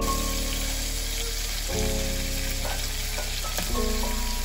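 Cooked crab pieces sizzling in hot oil in a wok as they are reheated, a steady frying hiss, with a slotted spoon moving them about.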